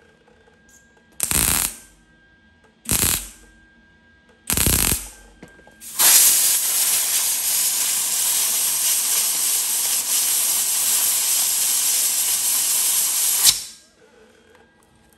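Three short MIG tack welds on sheet steel, each a crackling burst under a second long, followed by a compressed-air blow gun hissing steadily for about seven seconds and then cutting off. The air is blown onto the fresh welds to cool them so the panel doesn't warp.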